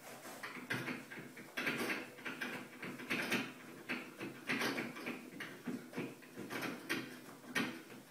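Toilet-paper roll being clawed and bitten by a cat: irregular bursts of paper rustling and tearing, with the roll rattling and spinning on its metal holder.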